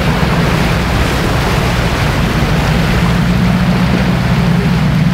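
A motorboat's engine running steadily at low pitch, with the churning wake rushing and splashing behind the stern.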